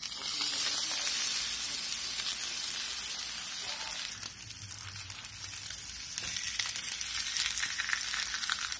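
Pepperoni pizza slices frying in a hot nonstick pan. The sizzle starts suddenly as a slice goes into the pan, eases about four seconds in, and builds again from about six seconds as the slices are moved about.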